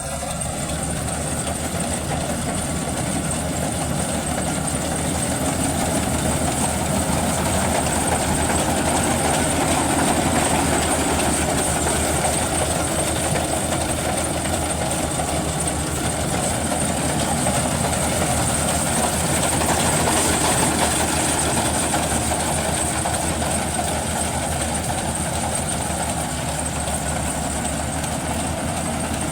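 Maxxi Bimo 102L rice combine harvester running steadily, its engine and machinery making a continuous mechanical din with a thin high whine over it.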